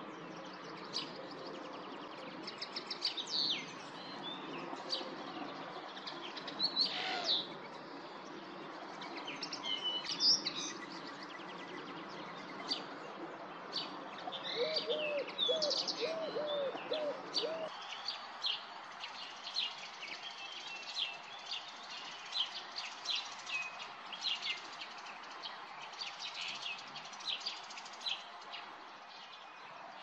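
Common linnet singing: a fast, varied twitter of chirps and trills. A low background rumble stops suddenly a little over halfway through.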